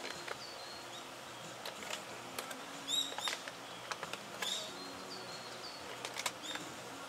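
Birds chirping in short calls, a quick pair about three seconds in and another about four and a half seconds in, among scattered light clicks and taps.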